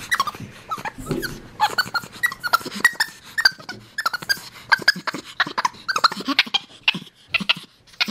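Black-capped capuchin monkey vocalising: a rapid run of short, high squeaks and chirps, several a second.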